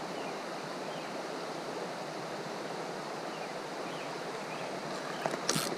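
Steady rushing of creek water, with a few sharp clicks and short bursts of noise near the end.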